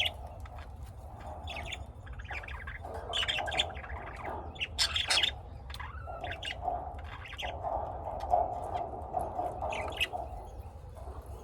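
Pet lovebirds chirping and squawking in a busy, continuous chatter of short, sharp calls, loudest about five seconds in.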